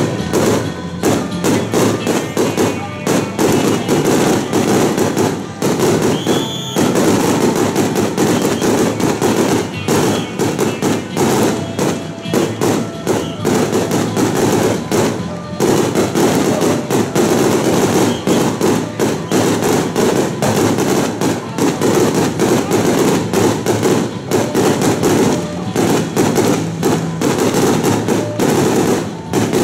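Strings of firecrackers going off in a dense, rapid crackle of bangs, with brief lulls about six and fifteen seconds in.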